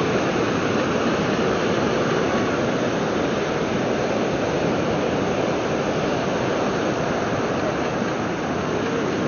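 Ocean surf breaking and washing up on a sandy beach: a steady rushing noise.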